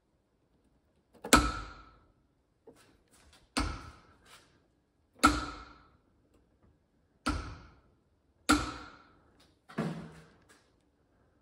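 Biltema click-type torque wrench releasing at its 40 Nm setting under the weight of a hanging canister of water: six sharp metallic clicks, each with a brief ring, the first the loudest and the last duller. The clicks show that the set torque has been reached.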